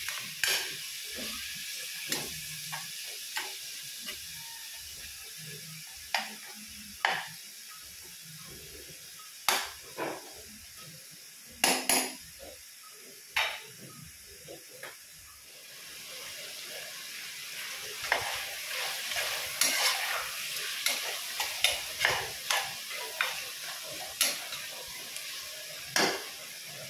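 Chicken and onions sizzling as they fry in a nonstick pot, with a spatula knocking and scraping against the pot as they are stirred. The sizzle grows louder after the middle, and the spatula knocks come thickest in the last third.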